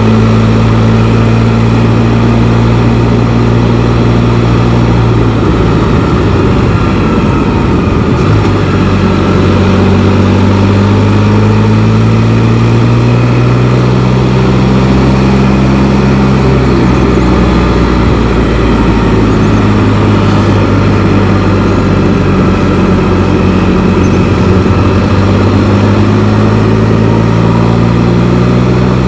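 Can-Am Spyder three-wheeled motorcycle's engine running on the move. Its pitch holds, drops and then climbs slowly again several times as speed and gears change.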